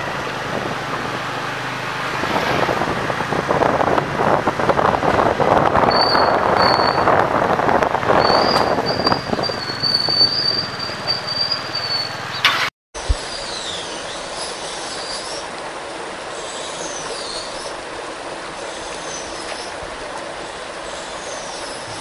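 Road noise from a motorbike riding through a street: engine and wind noise on the microphone, louder after about two seconds, with a high steady squeal for a few seconds in the middle. After a sudden cut about halfway, a quieter steady background takes over, with high sliding squeals.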